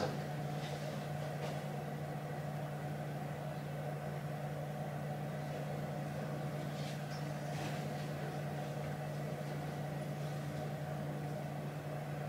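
Steady low hum of a running machine, unchanging throughout, with a higher whine above it and a few faint ticks.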